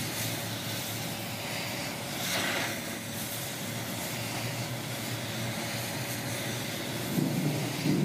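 A machine running steadily with a constant low hum, a brief hissier swell about two and a half seconds in, and a louder low rumble near the end.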